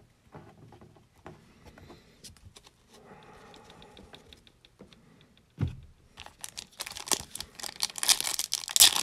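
Soft clicks and taps of trading cards being handled, and one thump a little past halfway. From about two-thirds in comes the loud crinkling and tearing of a foil trading-card pack's wrapper being opened.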